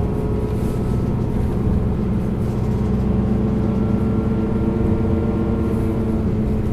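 Isuzu Erga bus's four-cylinder diesel engine running steadily, heard from inside the cabin, with a faint higher whine coming in about halfway through.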